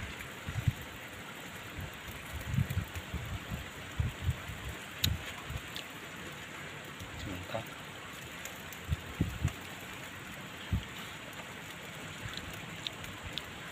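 Fish on banana leaves over a charcoal grill, sizzling and crackling in a steady hiss with a few faint clicks. Scattered dull low thumps stand out above the hiss.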